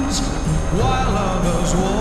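Background music with a wavering melody line.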